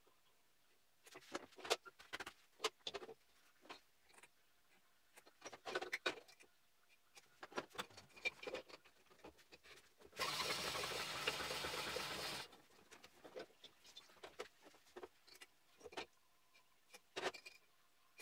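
A drill press runs a honing head in a two-stroke Jawa 640 motorcycle cylinder for about two seconds, a steady mechanical whirr with a scraping hiss. Before and after it come scattered clanks and knocks of the metal cylinders and tools being handled on the bench.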